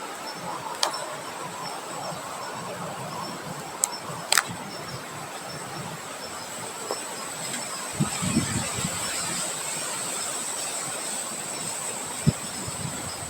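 Wind blowing through vegetation, a steady rushing noise, with a thin high whine held throughout. Several sharp clicks and a few low knocks about eight seconds in.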